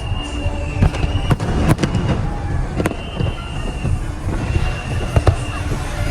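Aerial fireworks display: a continuous low rumble of shell bursts, with several sharp, separate bangs standing out. Steady high tones of about a second each recur over it.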